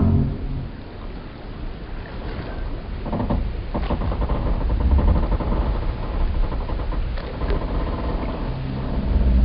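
Harbour ambience of wooden boat timbers and pier pilings creaking and groaning over a low rumble of lapping water. A long, drawn-out creak starts about four seconds in and fades out shortly before the end.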